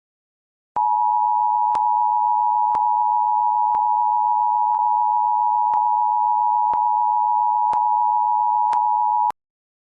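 Emergency alert attention signal: a loud, steady tone of two close pitches that starts about a second in, holds for about eight and a half seconds and cuts off suddenly. Faint clicks sound about once a second.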